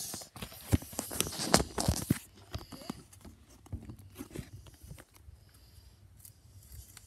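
Handling noise from a phone being picked up and turned around: a quick run of sharp knocks and rustling in the first two seconds, then a few fainter scattered clicks.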